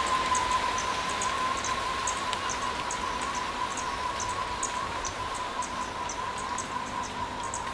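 Insects, cricket-like, chirping in short high chirps a few times a second over a steady hiss like rain or running water, with a constant high whine underneath.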